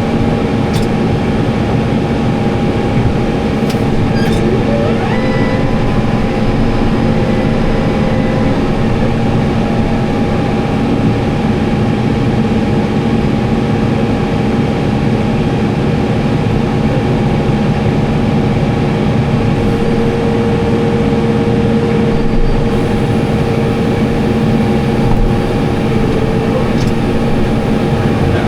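Tractor and round baler running steadily: a constant loud mechanical drone with a few steady tones held through, no change in speed.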